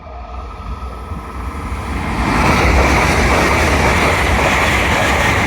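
An LNER Class 801 Azuma electric train passing through the station at speed without stopping. The noise of its wheels and air rush builds over about two seconds, then holds loud and steady as the train runs past.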